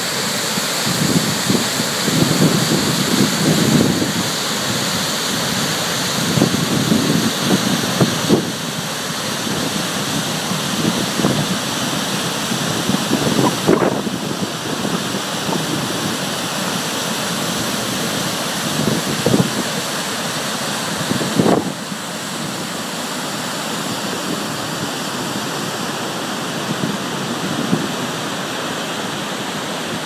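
Steady rushing roar of a large waterfall and its churning plunge pool. Wind buffets the microphone in irregular gusts, easing about two-thirds of the way through.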